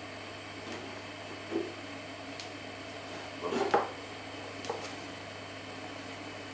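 A ceramic mug being handled on a kitchen worktop: a few soft knocks and light clinks, the loudest about three and a half seconds in, over a steady low room hum.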